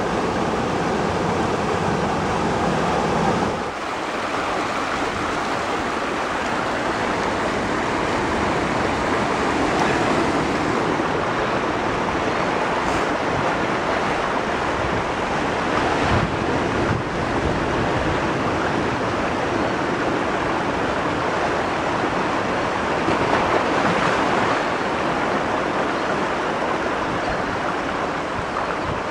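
Flash-flood water rushing and splashing down boulders in a normally dry stream bed. After a cut a few seconds in, a steady rushing noise continues, mixed with wind on the microphone.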